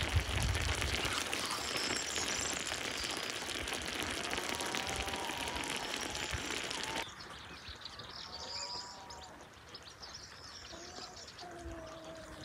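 Outdoor birdsong: short chirps and calls over a steady hiss that drops away suddenly about halfway through, leaving quieter birdsong.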